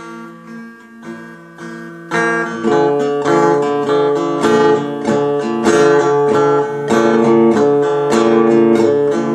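Acoustic guitar playing a blues instrumental passage: soft picked notes at first, then louder strummed chords from about two seconds in.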